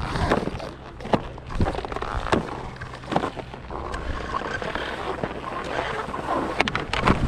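Skis scraping and sliding over hard, tracked snow, with wind rumbling on the microphone. A few sharp clicks and knocks come in the first few seconds. The scraping turns into a steadier hiss as the skier picks up speed.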